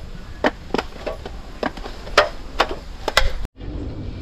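Irregular sharp taps and clicks as hands kneading flour dough knock against a stainless steel bowl, a few a second, cutting off abruptly about three and a half seconds in.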